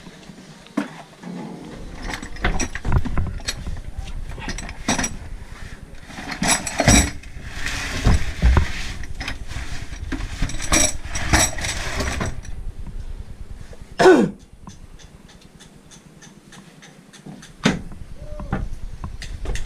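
Metal engine parts (pushrods and a rocker-arm assembly from a dismantled marine diesel) clinking and clattering as they are handled in a basin: a string of sharp knocks and ringing metal strikes. About fourteen seconds in comes one short, loud sound that falls in pitch, followed by a few scattered knocks.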